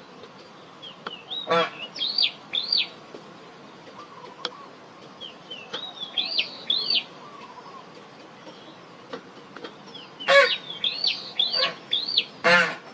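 Birds calling: a songbird sings a short phrase of quick rising-and-falling chirps, repeated three times, while another bird gives several louder, harsh calls, the loudest near the end.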